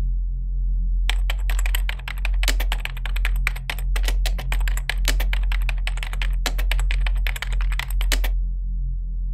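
Rapid computer-keyboard typing sound effect: a dense run of key clicks that starts about a second in and stops near the end, over a steady low drone.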